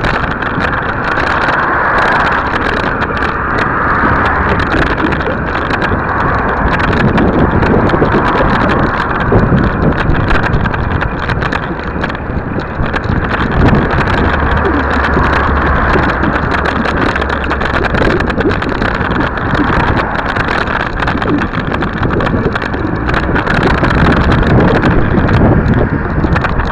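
Wind rushing and buffeting over the microphone of a camera riding along a cycle path, with rumble from the ride over the paving and passing car traffic.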